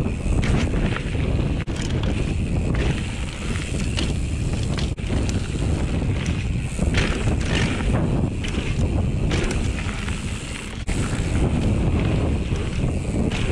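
Wind rushing over the microphone of a mountain bike rider's action camera while riding a dirt and gravel singletrack, with tyre crunch and short rattles from the bike over bumps. There are brief dips in the noise about one and a half, five and eleven seconds in.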